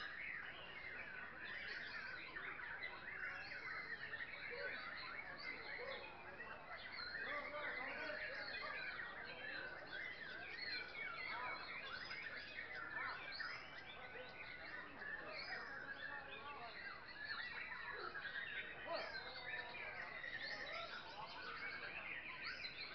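Many caged white-rumped shamas (murai batu) singing at once in a contest, a dense overlapping chorus of quick whistles and chirps that never lets up.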